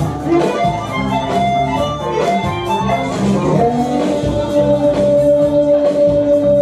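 Blues music playing for dancing. About four seconds in, a long note is held to the end.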